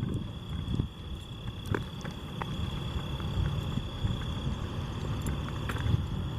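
Footsteps crunching and rustling over overgrown ground, with a few sharp clicks. A steady high insect drone continues throughout.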